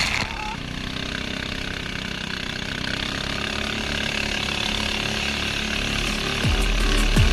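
Torpedo boat's engine running steadily with a harsh, chainsaw-like buzz. Background music with a deep bass beat comes back in near the end.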